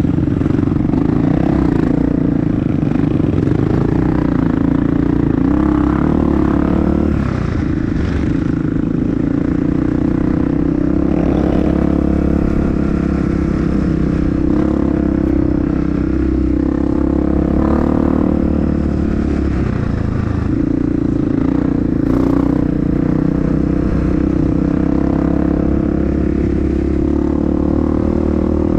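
Honda CRF dirt bike engine running steadily under way, with some clatter from the bike over rough ground.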